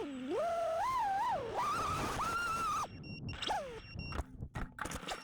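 FPV quadcopter's motors and props whining, the pitch rising and falling with the throttle, then cutting out about three seconds in. After that come a few knocks and a steady high beeping tone with short breaks.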